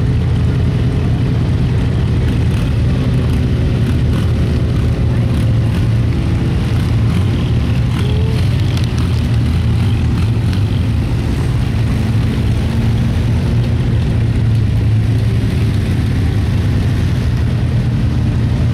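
Lifted off-road truck's engine running steadily at low revs while rock crawling.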